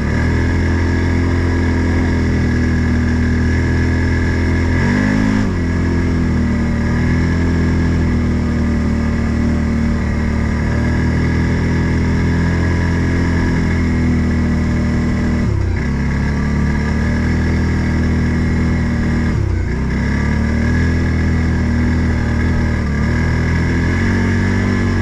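Odes 800 off-road vehicle's engine running steadily under way. The pitch drops briefly and climbs back three times: about five seconds in, after fifteen seconds and near twenty seconds, as the throttle eases off and opens again.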